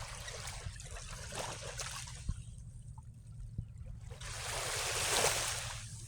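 Small sea waves washing and trickling at the water's edge, with a louder wash swelling about four seconds in and falling away; a steady low rumble underneath.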